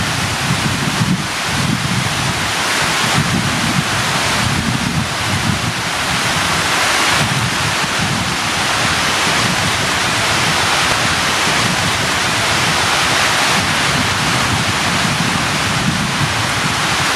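Heavy rain pouring steadily, with a low, uneven rumble underneath from wind buffeting the microphone.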